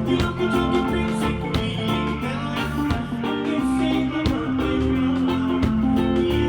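Live band music with guitar and a steady beat, played through a stage sound system at a sound check.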